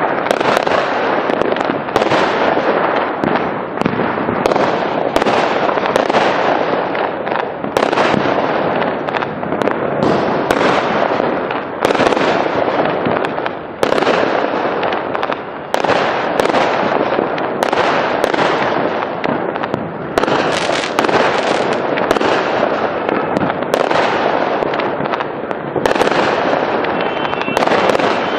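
Fireworks going off without a break: a dense, loud crackling hiss, renewed by a sharp burst every second or two that fades out.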